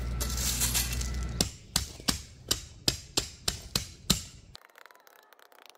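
Hand tamper pounding 3/4-inch clean gravel: about ten sharp strikes, roughly three a second, starting about a second and a half in and stopping about four seconds in.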